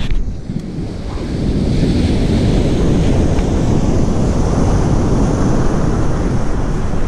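Wind noise on the microphone over the steady wash of ocean surf breaking on the beach, growing louder about a second and a half in and then holding steady.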